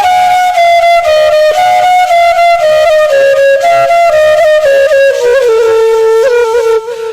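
Background music: a solo melody of held notes that steps gradually down in pitch, with short ornamental turns.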